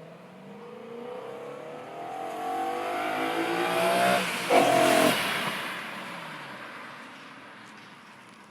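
BMW E9X M3's 4.0-litre V8 with a sport exhaust, accelerating hard past the microphone. The pitch climbs steadily and the sound grows louder, with a brief break about four seconds in, likely an upshift. It is loudest just after the break, then fades as the car draws away.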